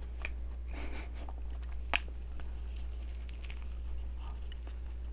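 Someone chewing a doughnut, with soft mouth noises, faint clicks and one sharp click about two seconds in, over a steady low hum.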